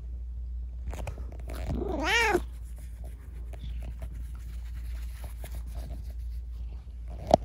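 A tabby cat gives one short meow about two seconds in, rising and then falling in pitch, with scattered soft scuffs and clicks as it rubs against the phone.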